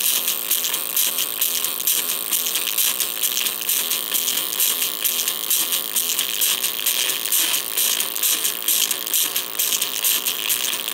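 Small cheap oval speaker being overdriven by an amplifier, putting out a harsh, crackling, rattling distorted sound that is thin and high with almost no bass. The speaker is being pushed toward blowing.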